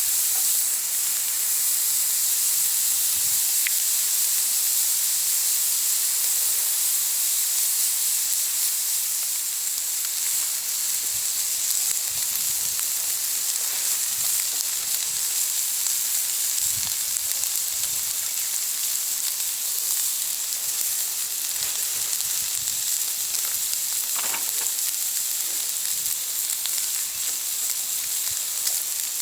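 Thick hardwood log burning in a Firebox stove: a steady hiss with a few faint crackles.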